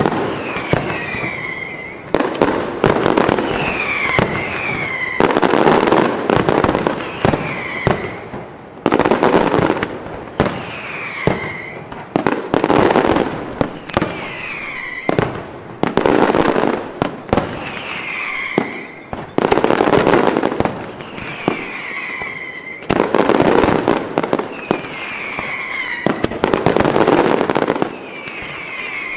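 Fireworks display: volleys of loud bangs and crackle from bursting shells, about every two seconds. Short falling whistles follow many of the volleys.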